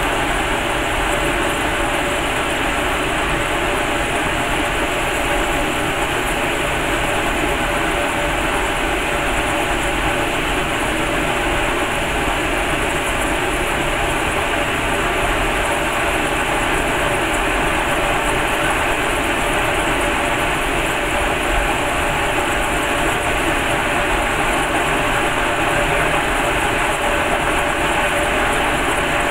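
Cremation furnace's burner and blower running with a steady, even rushing noise that does not change.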